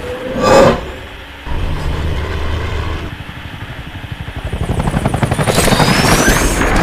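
A sudden loud burst about half a second in, then a low rumble, then a helicopter's rotor chopping, growing steadily louder toward the end: film sound effects.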